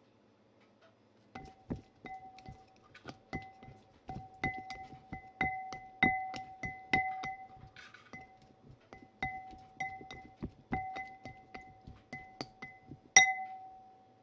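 Glass bowl clinking and ringing as it is struck again and again while dressed white melon slices are tossed in it. The clinks come irregularly, two or three a second, each leaving a clear ringing tone, with the loudest clink near the end.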